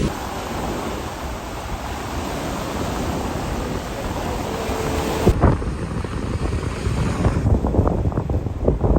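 Ocean surf hiss with wind buffeting the microphone. About five seconds in the sound changes abruptly, and gusty rumbles of wind on the microphone grow stronger near the end.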